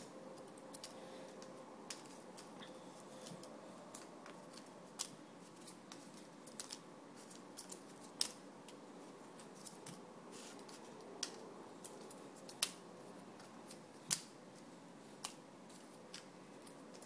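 Small paper team squares being handled and dropped into a cloth drawstring bag: quiet, with sharp snipping clicks at irregular intervals, a few louder ones in the second half.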